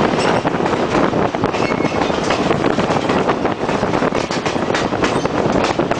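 Excursion train's passenger car rolling along the track, heard from an open window: a steady loud rumble of wheels on rail with frequent clicks and rattles.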